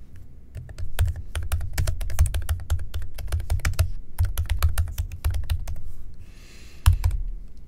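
Typing on a computer keyboard: quick runs of key clicks with a brief pause partway through, then a couple of louder key strikes near the end.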